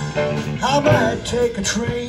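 Live rock 'n' roll band playing an instrumental passage on saxophone, electric guitars, keyboard and drum kit.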